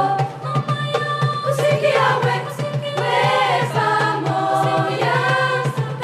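Mixed youth choir of girls' and young men's voices singing together, several parts sounding at once without a pause.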